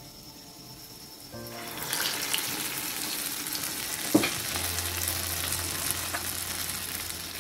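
Dahi bara batter fritters deep-frying in hot oil in an aluminium kadai: a dense, steady sizzle that comes up about a second and a half in and keeps going. A single sharp knock about four seconds in.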